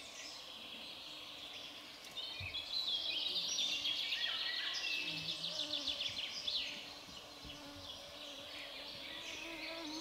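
Wild songbirds singing, with a dense rapid trilling song loudest from about two seconds in until nearly seven seconds. A faint steady low buzz, like a flying insect, runs underneath.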